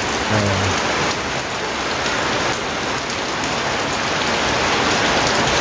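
Fairly heavy rain falling steadily: a dense, even hiss of rain on surfaces.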